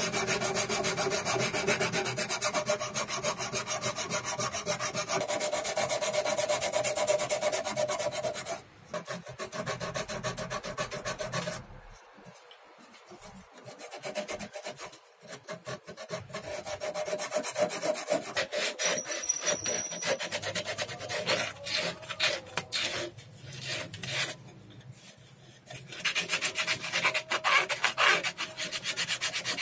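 Hand sanding a wooden saw handle: a strip of abrasive is pulled back and forth around its curves in quick, scratchy strokes. The rubbing eases off and goes patchy about a third of the way in, then picks up again and is strong near the end.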